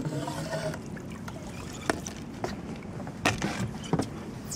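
Water lapping against the hull of a small fishing boat adrift on the current, with a few sharp knocks, about three, from the boat or tackle.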